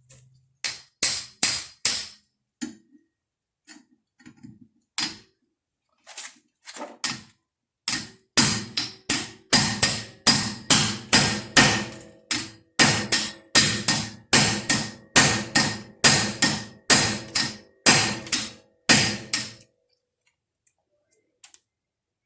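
A hammer striking the end of a half-inch-drive manual impact driver, metal on metal, each blow ringing briefly. A few scattered blows come first, then a steady run of about two blows a second for some twelve seconds, which stops near the end. The blows turn the driver to break loose a seized brake rotor retaining screw.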